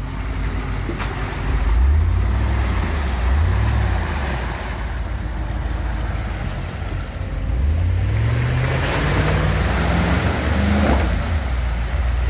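Land Rover Discovery II engine revving as the truck pushes through deep mud: a short rise in revs about two seconds in, then a long climb in pitch from about eight seconds that drops back near eleven seconds, with a rush of churning, splashing mud under the tyres during the climb.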